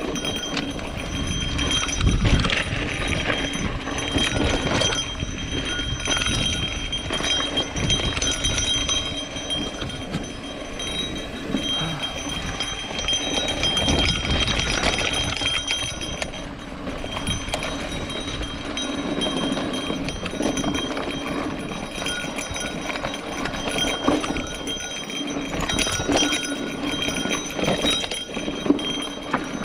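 Mountain bike riding down a rocky dirt trail: tyres rolling and crunching over dirt and rock, with the bike rattling and knocking over bumps throughout.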